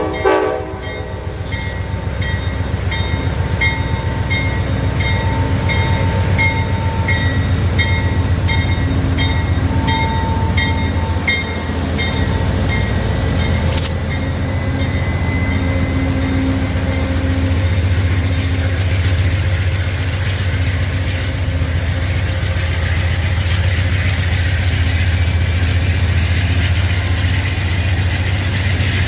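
Amtrak Northeast Regional passenger train going by. Its diesel locomotive's horn cuts off at the start, then the locomotive and cars give a steady low rumble. For about the first ten seconds a bell rings at an even pace, about one ring every half second or so, before the rolling noise of the train takes over.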